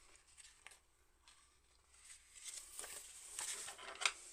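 Faint rustling of paper as a printed booklet is handled and moved across a table, with a single sharp tap near the end.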